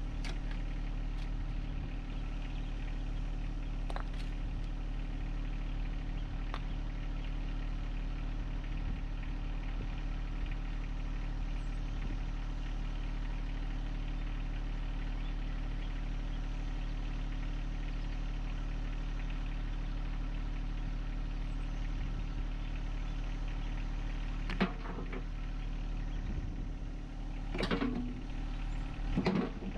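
John Deere 1025R compact tractor's diesel engine idling steadily, with a few knocks and clanks near the end.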